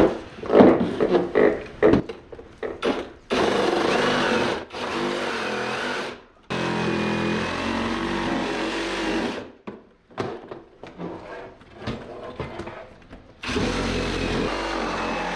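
Handheld power saw cutting through a plastic ride-on toy's body, running in four runs of a few seconds each with short pauses between, after a few sharp knocks at the start.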